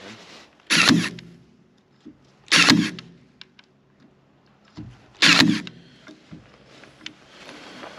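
Makita DST221Z 18 V cordless stapler firing three times, roughly two to three seconds apart, each shot lasting under half a second, driving staples over a wire into old oak. Faint clicks of handling come between the shots.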